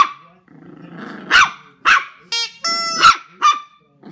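Jack Russell terrier puppy barking in sharp, high yaps, about five times, with growling in between.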